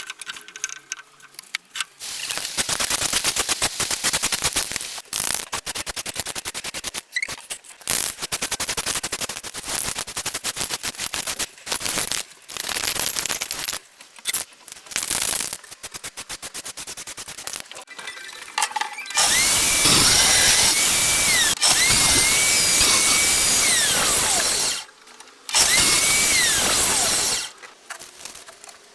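Handheld power tools at work on wood. A long stretch of rapid rattling in short bursts is followed about two-thirds of the way in by a louder motor running with a high whine, twice, for about six seconds and then two, winding down each time.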